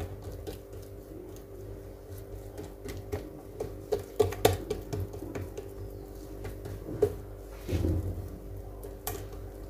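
Hands pressing and stretching oiled dough thin on a clay dish: soft pats and light taps, with a cluster of sharper taps about four seconds in and a soft thump near the end.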